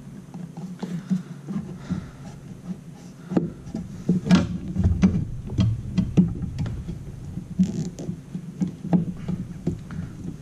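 Hands working a wiper motor into its rubber cowl gasket: irregular knocks, clicks and rubbing of plastic and rubber as the motor is pushed and turned to seat it.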